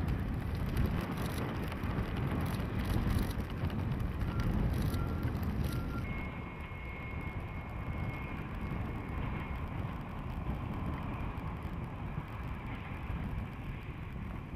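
DD14 rotary snowplow's diesel engines and snow blower running with a steady low rumble as it throws snow clear of the track. The sound shifts and becomes quieter about six seconds in.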